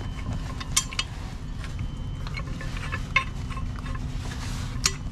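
Pipe wrench and tools clinking against a boat's propeller and shaft: scattered sharp metallic clicks, three of them louder, over a steady low rumble.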